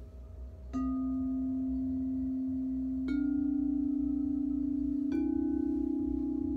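Crystal singing bowls, the root, sacral and solar plexus chakra bowls, struck three times with a mallet, about a second in, about three seconds in and about five seconds in. Each strike brings a new, slightly higher note that rings on steadily.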